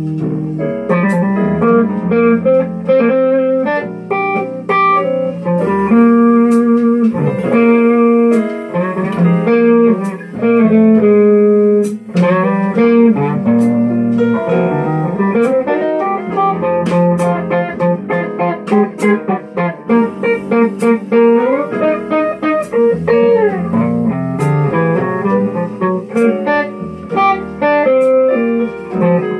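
Electric guitar playing a slow, bluesy melody of single notes and held tones, with a note sliding upward about halfway through.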